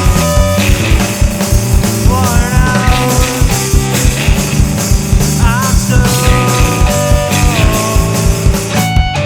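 Math-rock band playing live: busy drums and bass under sustained guitar lines, a few notes bending and wavering in pitch.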